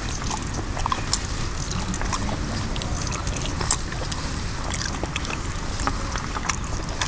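Wet eating sounds of a man biting and tearing at a large piece of chicken curry by hand: scattered short wet smacking clicks over a steady low rumble.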